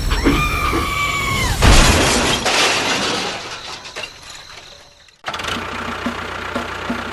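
A held, steady tone, then a loud crash about a second and a half in that fades away over about three seconds; after a sudden cut, a sound with a regular beat starts.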